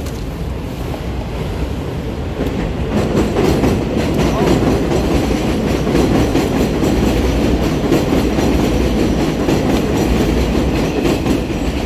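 Elevated subway train passing on the steel viaduct overhead, growing louder about three seconds in into a steady, loud rolling of wheels on rails.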